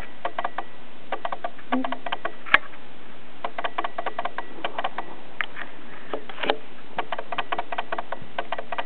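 Pet brush raked through a kitten's fur in short, quick strokes: clusters of dry scratchy clicks, with one sharper click about two and a half seconds in.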